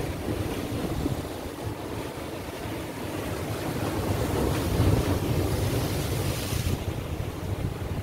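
Atlantic Ocean surf breaking and washing over rocks along a rocky shore, with a low rumble of wind on the microphone. One wave surges and is loudest about five seconds in, and its hiss falls away sharply near the end.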